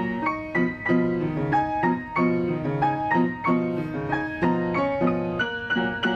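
Upright piano played four hands as a duet: a steady low accompaniment under a higher melody, notes struck at an even pace of about three a second.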